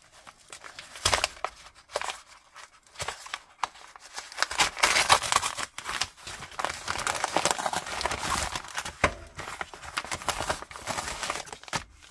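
A brown kraft-paper mailer envelope being torn open by hand: crackling rips and crinkling paper, with a few sharp snaps. It grows loudest in the middle and dies away near the end.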